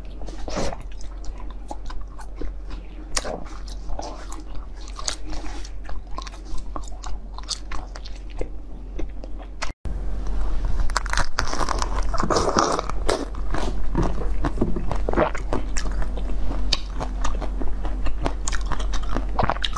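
Close-miked eating sounds: soft biting and wet chewing of orange heart-shaped jelly. After a cut about ten seconds in, louder, sharper bites and crunches of a green fruit-shaped dessert.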